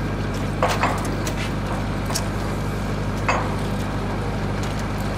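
Heavy diesel engine of a mobile crane running steadily, with three sharp metallic clinks of a wrench against a steel lifting shackle: two close together under a second in and one more past three seconds.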